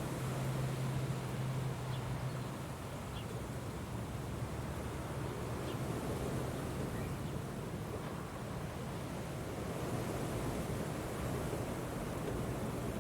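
Strong wind blowing steadily, with a low steady hum underneath that is strongest for the first two seconds or so.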